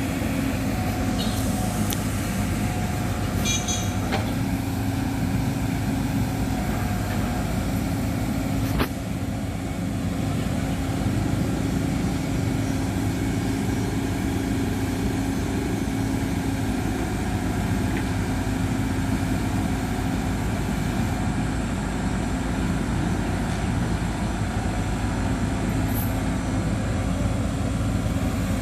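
Heavy diesel engine running steadily at a constant speed, with a single sharp knock about nine seconds in.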